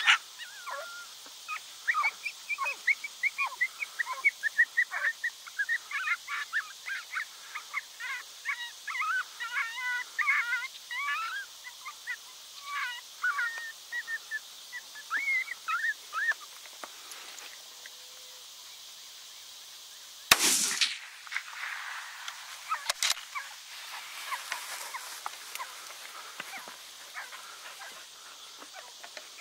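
Rapid high-pitched canine yips and barks, typical of a coyote squaring off with a decoy dog, go on for the first sixteen seconds or so. About twenty seconds in comes a single loud rifle shot, followed by a few fainter sharp cracks.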